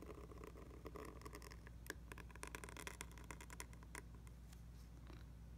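Faint scratching of a pointed calligraphy nib dragging across paper as a letter stroke is drawn, with small ticks and scrapes, over a low steady hum.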